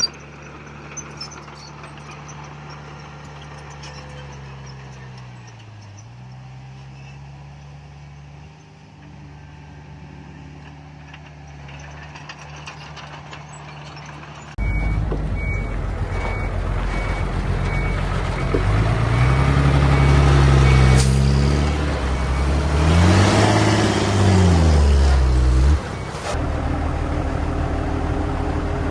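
Diesel engines of heavy earthmoving machinery running. In the first half one engine's speed dips briefly and recovers. Then, after an abrupt jump in loudness, a reversing alarm beeps steadily for about six seconds while a louder diesel revs up and back down twice.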